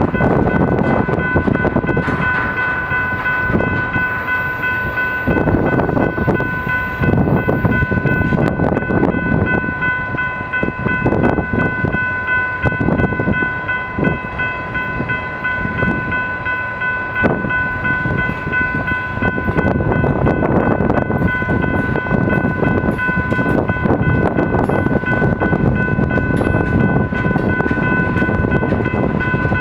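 Freight train cars rolling past: tank cars, a boxcar and a covered hopper, their wheels rumbling and clicking steadily over the rail, with a steady high ringing tone throughout.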